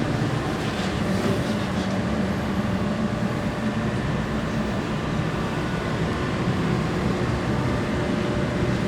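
Steady low rumbling drone with a few faint steady hum tones above it, holding the same level throughout.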